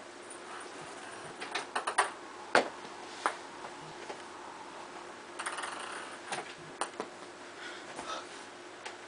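Light, irregular taps and clicks on a wooden tabletop, with a quick cluster of them about one and a half to two seconds in and the sharpest tap about two and a half seconds in.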